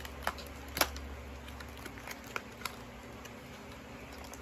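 A few short, sharp crackles and ticks as the tape and wrapping on a small gift are picked at and peeled by hand, the sharpest a little under a second in, over a steady low hum.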